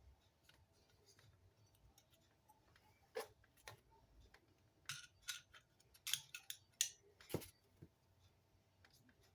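Scattered sharp clicks and light clinks from hand-handling a clamp and socket on a small-engine recoil starter, a few about three seconds in and a cluster between about five and seven seconds, with near quiet in between.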